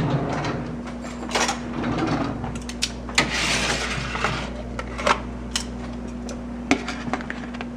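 Kitchen handling sounds while plating food: a utensil scraping for about a second, and several light clicks and knocks of dishes, over a steady low hum.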